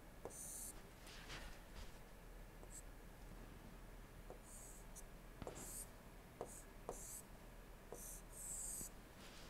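Faint scratching and light tapping of a stylus drawing lines on a tablet screen, in several short strokes with pauses between them.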